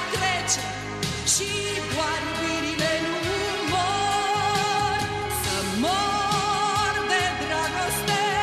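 Romanian pop song: a melody held in long notes with vibrato, over a steady bass and backing accompaniment.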